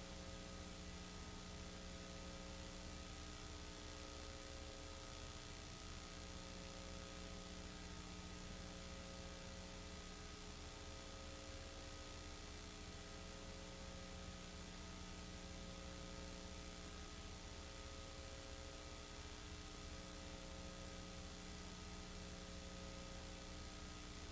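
Steady electrical hum with hiss, and no other sound. A faint mid-pitched tone within the hum fades in and out every five or six seconds.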